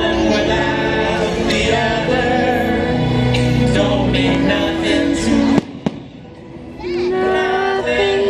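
Fireworks show music plays loudly, with two sharp firework bangs about five and a half seconds in. The music then drops away briefly before coming back.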